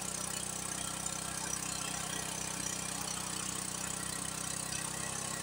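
A steady low engine hum, running evenly like a motor at idle, over an even hiss of water trickling down a rock ledge.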